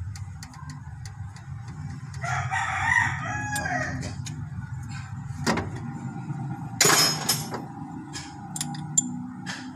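A rooster crows once, about two seconds in, over scattered clicks of a socket wrench on the engine's timing belt tensioner. A short, loud clatter comes about seven seconds in.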